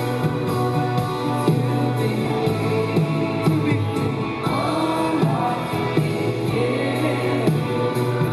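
Live music: a male lead voice singing with women's voices, over bowed violins.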